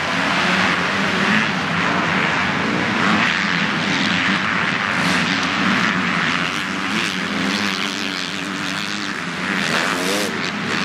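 Motocross bike engines revving on the track, several overlapping, with the pitch rising and falling as riders work the throttle; one swells and drops away near the end.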